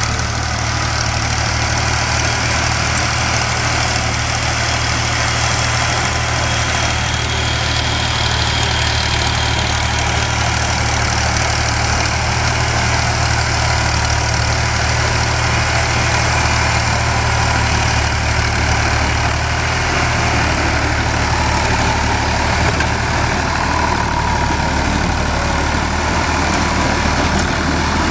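Farm tractor's diesel engine running steadily under load while it pulls a rear-mounted rotary tiller through dry soil.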